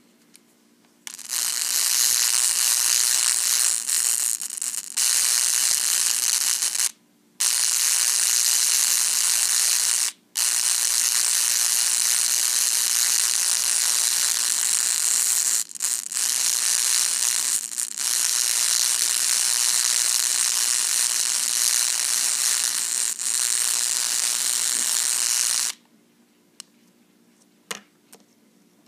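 Weller 100/140 soldering gun with a home-made copper-wire tip running with a small neodymium magnet at the tip, making a loud, harsh buzz while the magnet is heated and weakened by the alternating current. The buzz starts about a second in, drops out briefly about seven and ten seconds in, and cuts off near the end.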